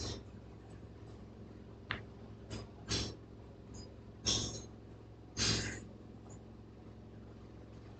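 Quiet room tone with a steady low hum, broken by three short breaths close to the microphone, between about three and six seconds in, and a faint click just before two seconds.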